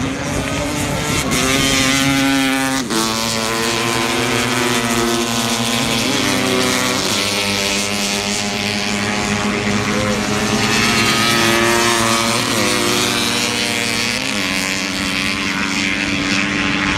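Two-stroke racing motorcycles of under 650cc running hard on beach sand. The engine note is loud and steady, and its pitch steps up and down several times.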